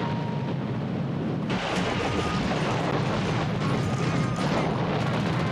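Dense rumble of gunfire and explosions from a bomber attack on a surfaced U-boat, growing heavier about a second and a half in.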